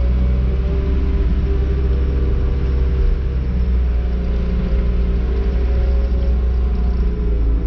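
John Deere wheel loader's diesel engine running steadily under load, heard from the cab, as it pushes manure with a scraper attachment.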